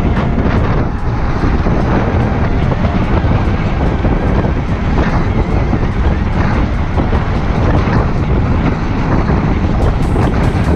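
Wind rushing and buffeting over the microphone of a chin-mounted action camera while riding an electric scooter, mixed with steady road and tyre noise.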